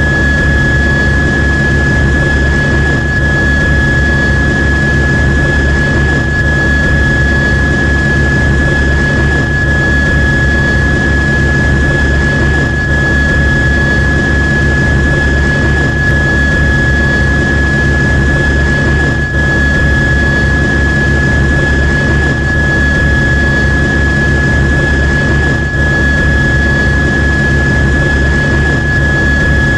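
News helicopter running steadily: a high-pitched turbine whine over a low rotor rumble.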